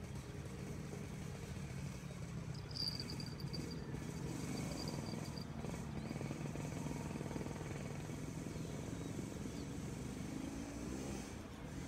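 Steady low hum of distant engines, with a brief high, thin trill about three seconds in.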